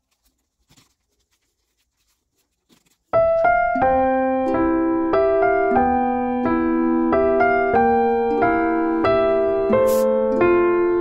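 Near silence with a few faint ticks, then about three seconds in, background keyboard music with a piano sound starts suddenly and plays a simple tune of held notes.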